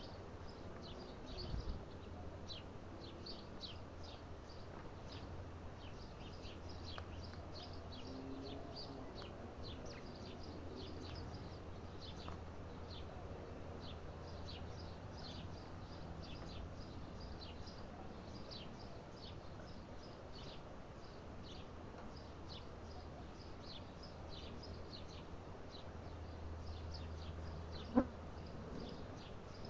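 Small birds chirping rapidly and continuously, many short high downward chirps overlapping, over a steady low hum. A single sharp click near the end.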